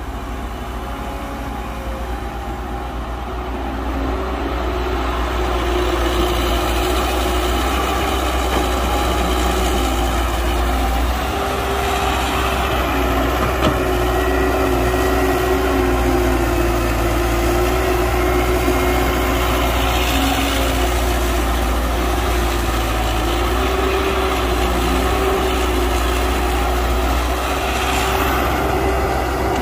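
Heavy diesel engine of construction machinery running steadily, growing louder about four seconds in.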